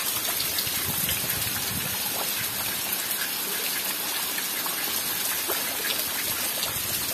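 Steady heavy rain, with rainwater gushing from a roof spout into a nearly full drum.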